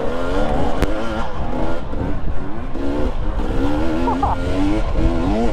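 Off-road dirt bike engine being ridden on a trail, its pitch rising and falling quickly as the throttle is worked on and off, over a low rumble, with one sharp click about a second in.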